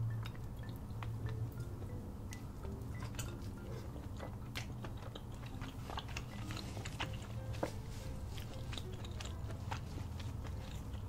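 Close-up eating sounds: biting and chewing a seafood boil in a cheesy sauce, with frequent short wet mouth clicks and smacks.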